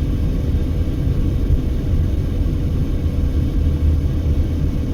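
Steady low rumble of a car's engine and tyre noise while driving at speed, heard inside the cabin, with a faint steady hum running through it.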